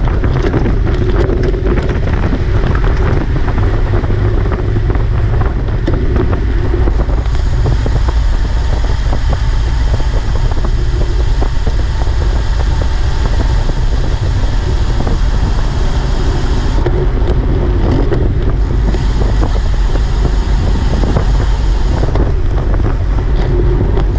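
Loud, steady wind noise buffeting the microphone, a dense low rumble with no clear tones or distinct events.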